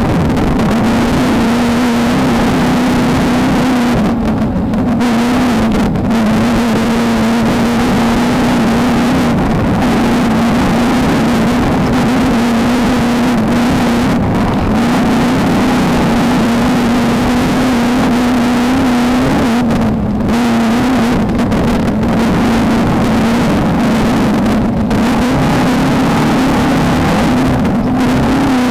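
Off-road race car's engine running at high, steady revs under load, loud and continuous, with heavy wind and running noise and a few brief dips in the hiss.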